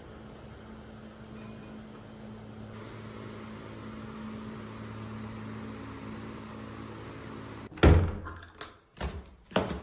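A steady low hum, then about eight seconds in a loud thunk followed by a few sharp clicks and knocks as a door knob and latch are worked and the door is opened.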